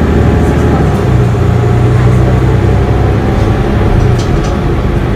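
Mercedes-Benz Citaro city bus moving along, heard inside the passenger cabin: a steady low engine drone mixed with road noise, with a few faint rattles about four seconds in.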